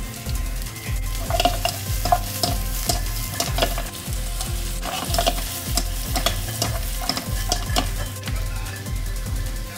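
Sliced vegetables and chicken skin sizzling in a nonstick frying pan as they are stir-fried, with irregular sharp knocks and scrapes against the pan about once or twice a second.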